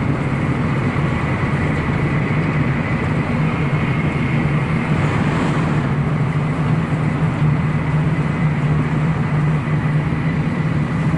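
Shinkansen bullet train running at speed, heard from inside the passenger car: a steady, even rumble with a faint high tone running through it.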